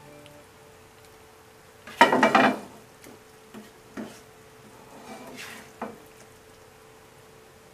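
A metal utensil scraping and clattering against cookware for about half a second, about two seconds in, followed by a few lighter knocks and one sharp click near six seconds in.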